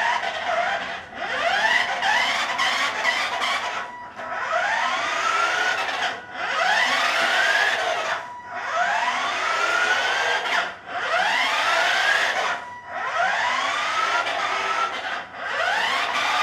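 Toy RC car's small electric drive motor running in repeated bursts, a rising whine each time it speeds up, cutting out briefly between runs about every two seconds.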